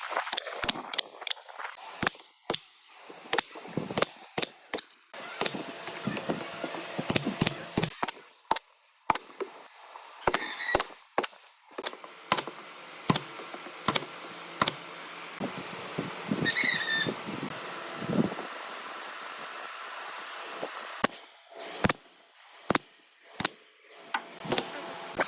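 Irregular series of sharp knocks on wood, about one to two a second, from hand work on big wooden slats.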